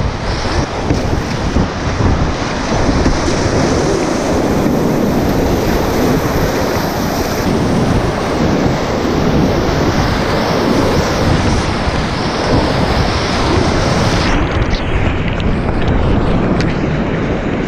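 Loud, steady rushing of whitewater rapids as a kayak runs through them, with water splashing against the camera.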